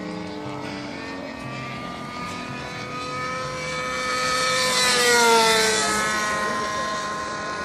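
Nitro-fuelled O.S. 46 LA two-stroke glow engine of a radio-controlled model airplane in flight, making a pass. The engine note swells to its loudest about five seconds in, then drops in pitch as the plane goes by.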